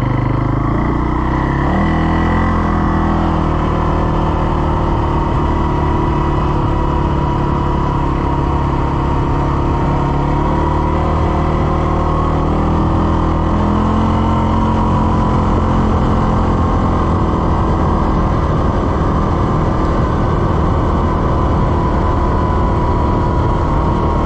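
CFMoto CForce 600 ATV's single-cylinder engine running steadily under way, picking up speed about two seconds in and again a little past halfway.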